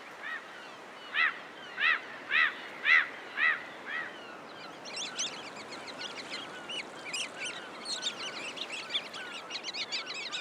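Shorebirds calling at the tide line: first a run of about six loud calls half a second apart, then from about four seconds in a flock of small waders, such as sanderlings, twittering in quick, high, overlapping calls. Steady surf noise runs underneath.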